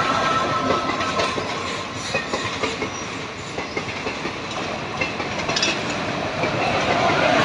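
Indian Railways passenger coaches rushing past close by, their wheels clattering over the rail joints. The rumble grows louder again near the end as an electric locomotive comes by on the adjacent track.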